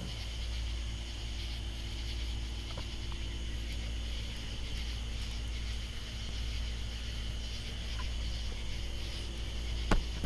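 Katydids calling steadily in a continuous chorus, over a low steady hum, with one sharp click near the end.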